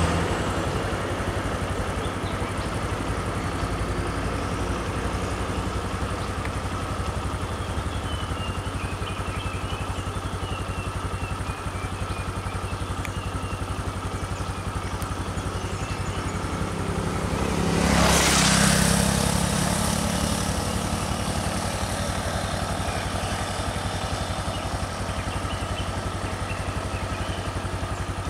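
An engine idling steadily, with a vehicle passing by about two-thirds of the way through, its sound swelling and fading over two or three seconds.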